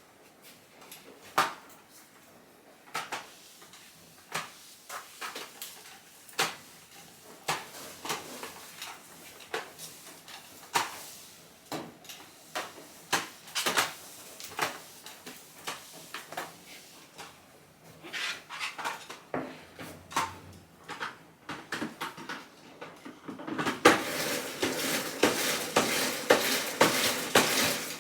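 Household objects being handled: a series of separate light clicks and knocks, then a busier stretch of clatter and scraping near the end.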